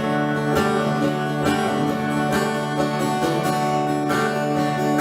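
Acoustic guitar strumming chords in a steady rhythm, an instrumental lead-in before singing begins.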